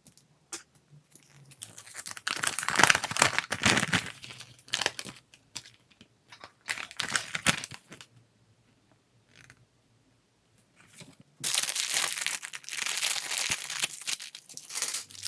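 Plastic LEGO minifigure blind bag being torn open and crinkled by hand, in bursts with short pauses, then a longer unbroken stretch of crinkling near the end.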